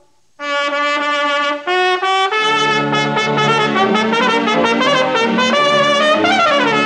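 Recording of a bravura solo trumpet playing with vibrato. After a brief pause it holds a note, steps up in pitch, and is then joined by lower accompaniment, ending with a fast downward run near the end.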